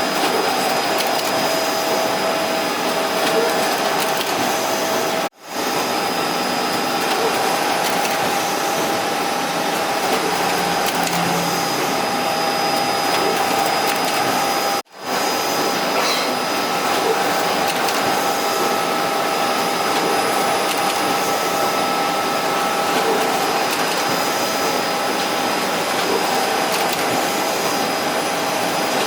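Ricoh Pro C7500 production colour printer running: a steady mechanical whir of fans and paper transport with a constant hum. The sound cuts out for an instant twice.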